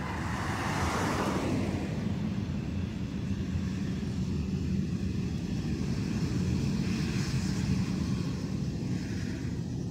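Airbus A320neo's jet engines in reverse thrust during its landing roll, heard from a distance as a steady low rumble.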